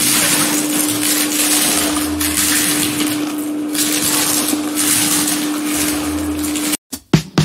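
Tortilla chips being crushed under bare feet: a dense, continuous crunching and crackling with a few dull thuds from the footfalls and a steady hum underneath. It cuts off suddenly near the end.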